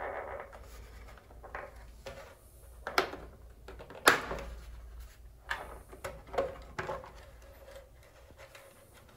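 Plastic control panel of an Ariston Velis Evo electric water heater being pried and pulled off its casing, its retaining clips releasing: a scrape, then several sharp plastic clicks and knocks, the loudest two about three and four seconds in.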